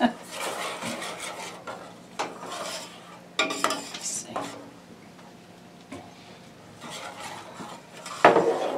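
A spoon stirring and scraping around a stainless steel saucepan of browned roux thinned with chicken stock, with scattered clinks against the pot; the loudest scrape comes near the end.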